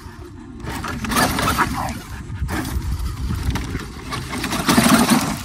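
Traxxas X-Maxx RC monster truck's brushless electric motor whining up and down in bursts as the tyres spin and scrabble on loose gravel and dirt. It starts about a second in and is loudest near the end.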